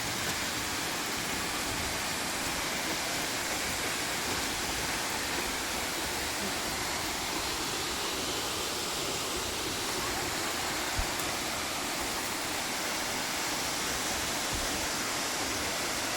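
Waterfall: a steady rush of falling water, with one brief thump about eleven seconds in.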